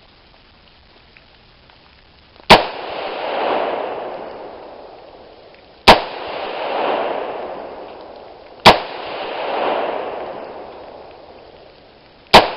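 Four rifle shots from a Radical Arms AR-15 in .223, fired a few seconds apart, each sharp crack followed by a long rolling echo that swells and then fades.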